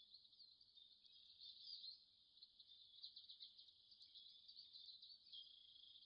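Near silence, with faint, high-pitched chirping and twittering of small birds in the background.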